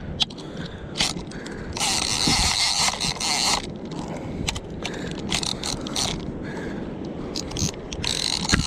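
Lever-drag game-fishing reel ratcheting and clicking as its handle and drag lever are worked by hand, with a long burst of harsh mechanical noise about two seconds in and another near the end. The reel is faulty and seizing up.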